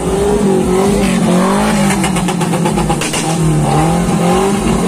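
Small pickup truck's engine revving hard while drifting, its pitch swinging up and down again and again as the throttle is worked. A rapid patter of sharp clicks comes in about two to three seconds in.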